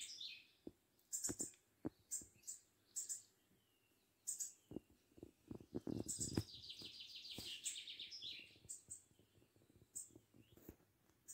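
A small songbird singing: short high chirps scattered throughout, and a fast trill of rapidly repeated high notes lasting about two seconds, starting about six and a half seconds in. Soft low knocks come just before the trill.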